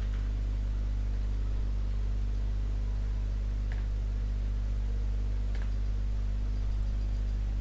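Steady low electrical mains hum with its overtones, under a faint hiss, with a couple of faint light ticks partway through.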